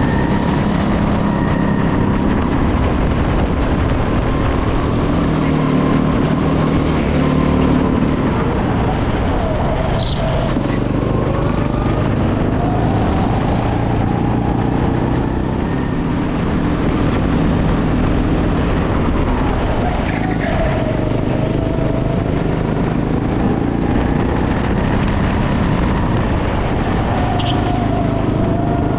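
Go-kart engine heard close up from the driver's seat, its pitch rising and falling as the kart accelerates out of corners and lifts off into them.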